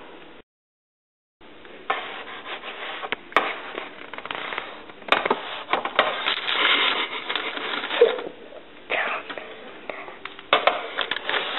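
Baked cookies being moved from a baking sheet onto a wire cooling rack: scraping and rubbing with many light clicks, after a second of dead silence near the start.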